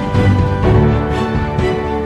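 Background music with sustained chords over a low pulse; the chord changes about two-thirds of a second in.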